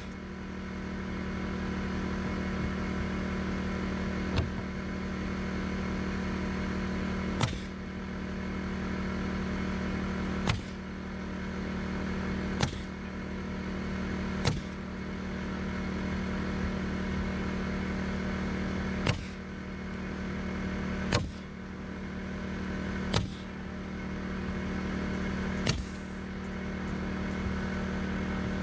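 Pneumatic nail gun driving nails into OSB subfloor sheathing: a sharp shot every two to three seconds, about ten in all. Underneath runs the steady hum of an air compressor.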